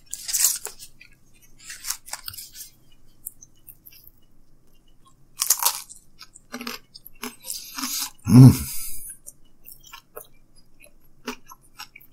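A man biting and chewing thin-crust Pizza Hut pizza close to the microphone: a few crisp crunches, one of them a bite about five and a half seconds in, with small wet mouth clicks in between. About eight seconds in comes the loudest sound, a short low voiced sound from his throat.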